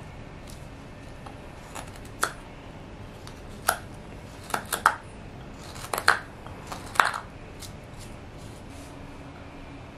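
Hook knife carving into a block of birch wood, hollowing out a kuksa cup: about a dozen short, sharp cutting strokes at uneven intervals, loudest in the middle, over a steady background hiss.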